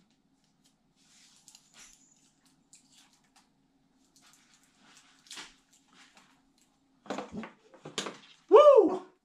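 Faint plastic clicks from the folding arms of a DJI Mini 3 drone being handled and swung open, over a faint steady hum. About seven seconds in come a few sharper clicks, then a knock as the drone is set down on the wooden table, followed by a loud "woo!" cheer.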